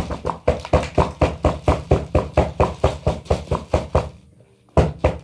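Rapid, even knocking, about four to five knocks a second, that stops about four seconds in and starts again briefly near the end.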